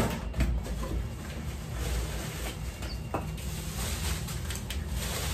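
Bubble wrap and cardboard rustling as a wrapped glass pot lid is handled and lifted out of a box, with a couple of light knocks.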